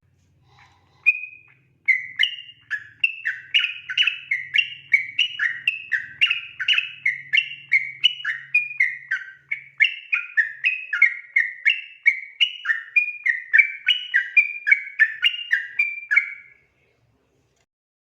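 Yellow-vented bulbul (trucukan) singing its long 'ropel' song: a single note, then an unbroken run of rapid notes, two or three a second, alternating up and down in pitch, that stops sharply near the end.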